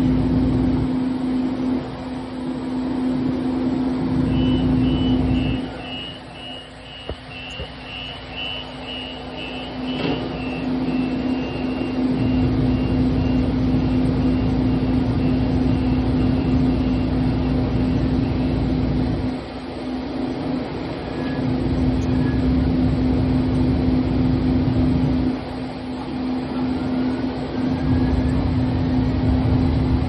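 Siemens S200 light rail vehicle running, with a steady hum and a low rumble that fades and returns several times. A run of quick high beeps sounds from about four seconds in until past the middle, and a faint rising whine comes in near the end.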